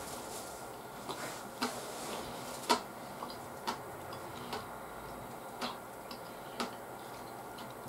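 Quiet eating of curry rice with a metal spoon from a ceramic bowl: short sharp clicks and taps, about one a second, over soft chewing.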